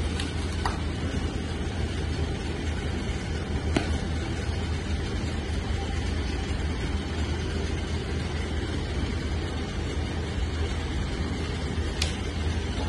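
Steady low rumble, engine-like background noise, with three sharp clacks: one shortly after the start, one about four seconds in and one near the end.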